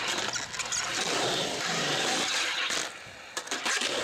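Skateboard grinding along the lip of a concrete quarter pipe and rolling on the ramp: a loud, steady scraping rumble of trucks and wheels on concrete, dropping away briefly about three seconds in before the wheels roll again.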